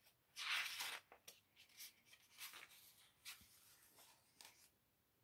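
A page of a hardcover picture book being turned: a soft paper rustle about half a second in, followed by a few fainter rustles and taps.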